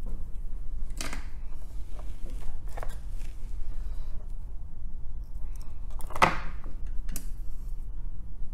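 A few short scraping and rustling sounds from soldering rework on a circuit board, as a soldering iron and copper desoldering braid are handled and worked over the chip pads, the loudest a little past the middle. A steady low electrical hum lies underneath throughout.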